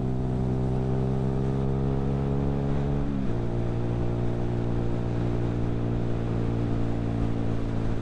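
Keeway Superlight 125cc motorcycle engine running under way. Its pitch creeps up slightly, then the revs drop sharply about three seconds in and hold steady at the lower pitch.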